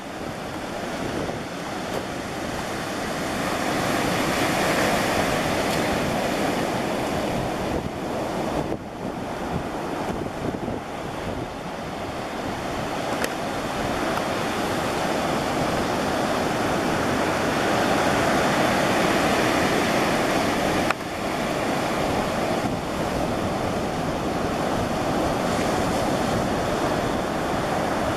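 Ocean surf breaking and washing up a sandy beach, the noise swelling and easing slowly as the waves come in.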